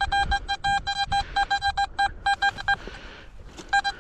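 XP metal detector giving a quick run of short beeps, all on one pitch, as the coil sweeps over a strong target that reads 85–86 on its conductivity scale. The beeps break off briefly and start again near the end.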